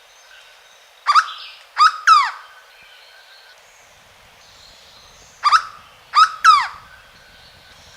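Hooded berryeater (corocoxó) singing: two phrases of three loud, sharply falling notes each, the first phrase about a second in and the second about four seconds later.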